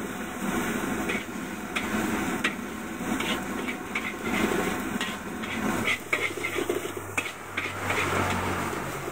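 Metal spatula scraping and knocking against a steel wok as fried rice is stir-fried, a sharp knock every half second to a second, over a steady hiss.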